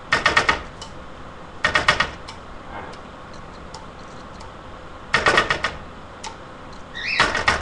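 A kitchen utensil clicking rapidly against a bowl in four short bursts, as in whisking or stirring a mixture.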